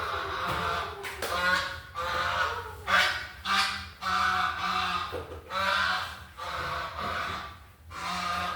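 Sleeping cat snoring: squeaky, honk-like breaths coming about once a second, each with a nasal whistle.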